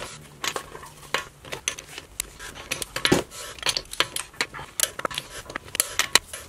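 Torque wrench and socket clicking and clinking on wheel lug nuts as they are tightened to torque spec in a star pattern: a string of sharp, irregular metal clicks with one heavier knock about halfway.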